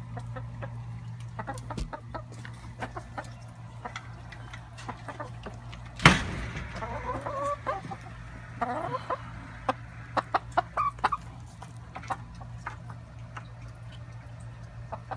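Backyard chickens clucking, with two short runs of calls after the middle, over many sharp taps and clicks and one loud knock about six seconds in.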